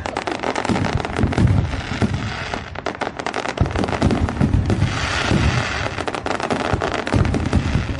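Fireworks bursting and crackling: a dense run of bangs and sharp crackles throughout.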